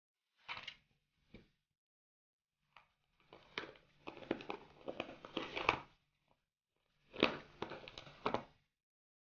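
Clear plastic food storage boxes being handled: lids pressed shut and boxes shifted on a cloth-covered table, in several short bursts of plastic clicking and rustling, the longest about three seconds in.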